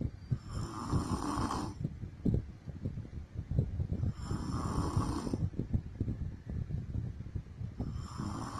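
A woman snoring in her sleep, with breaths about four seconds apart; the third starts near the end.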